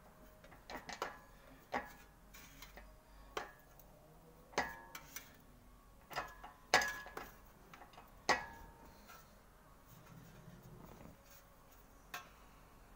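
Sheet-metal repair panel being worked through an English wheel: irregular sharp clinks with a short metallic ring, about ten in all, as the panel is shifted between the wheels.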